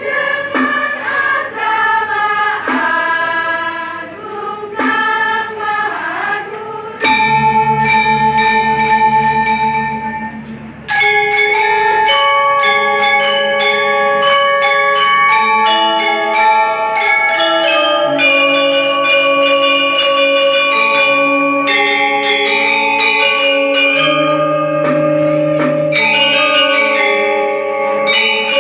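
A choir sings for the first several seconds. About seven seconds in, tuned bells take over, ringing a melody over overlapping held notes that build into chords.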